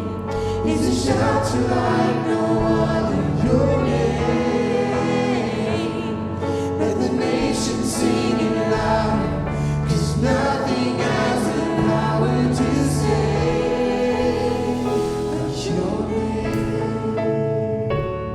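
A group of voices singing a worship song together over steady instrumental accompaniment.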